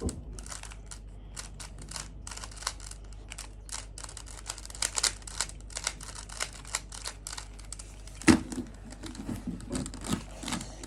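Plastic Rubik's cube layers being twisted by hand, an irregular run of quick clicks and clacks several times a second. About eight seconds in there is one louder knock.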